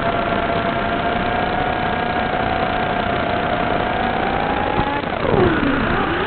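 Small FPV quadcopter's brushless motors whining at a steady pitch over a constant hiss. About five seconds in, the pitch drops sharply as the throttle is cut, then climbs back up as power comes on again near the end.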